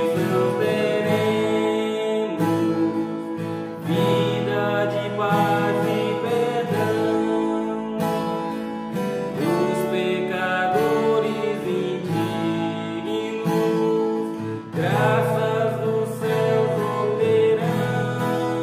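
A man singing a gospel hymn solo while strumming chords on a steel-string acoustic guitar.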